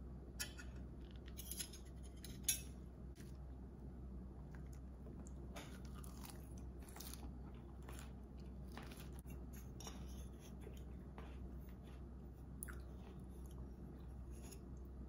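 Fork and spoon clinking and scraping against a plate of spaghetti and salad in short, scattered taps, with one sharper clink about two and a half seconds in.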